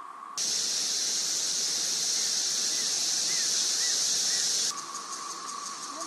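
Periodical cicada recordings. At first comes the steady wailing drone of a Magicicada septendecim chorus. Under half a second in it is cut off by a louder, higher, hissing cicada chorus that runs for about four seconds and stops suddenly. Then the septendecim drone returns with the faint, repeated clicking song of Magicicada septendecula.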